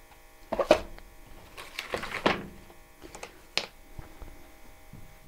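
Packaging handled by hand: the plastic-bagged solar charge controller rustling and being set down in its cardboard box, a few short crinkles and knocks about a second apart, over a faint steady hum.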